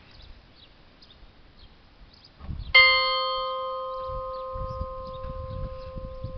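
A single bell struck once about three seconds in, ringing on and fading slowly.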